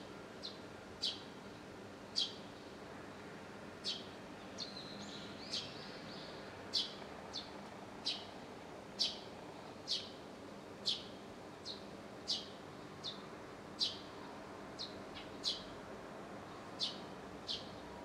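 Eurasian tree sparrow chirping: short, sharp cheeps falling in pitch, about one a second, over faint steady background noise.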